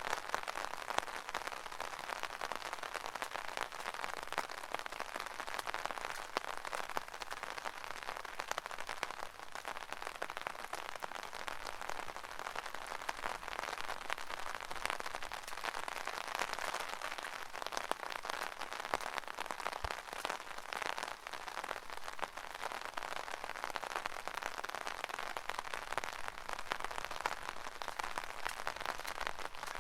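Rain pattering steadily on an umbrella: a dense, even spatter of drops without let-up.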